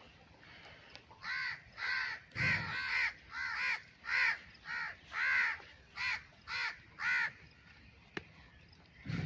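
Crow cawing in a quick series of about a dozen short calls, roughly two a second, stopping about two seconds before the end, followed by a low thump.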